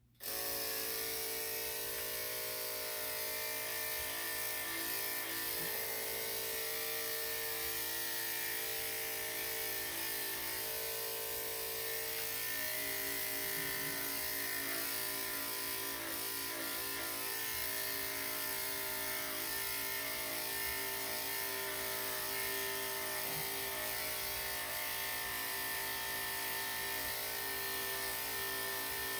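Electric dog-grooming clippers fitted with a #5 blade, switched on at the start and running with a steady buzzing hum.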